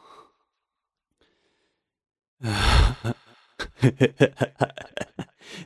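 A man's heavy, breathy sigh about two seconds in, followed by a quick run of short, voiced panting breaths.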